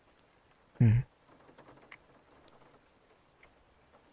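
A man's voice making one short murmur about a second in, followed by faint scattered ticks and soft patter.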